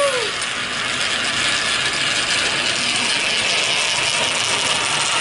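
Coins rolling around the curved surface of a spiral coin funnel, making a steady, rapid rattling whirr as they circle toward the hole.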